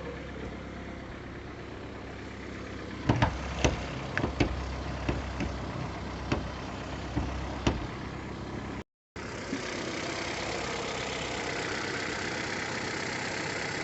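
Ford New Fiesta four-cylinder petrol engine idling, with a 'tec tec' ticking that the owner suspects is a hydraulic tappet (lifter) noise. It has grown louder since the last oil change. About three seconds in, a run of loud, irregular knocks and clicks lasts some five seconds. After a brief dropout the engine is heard louder and steadier.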